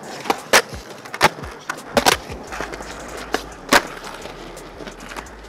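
Skateboard wheels rolling on concrete, broken by several sharp clacks of the board's tail and wheels hitting the ground during quick flatground tricks; the loudest come about half a second, a second and a quarter, two seconds and nearly four seconds in.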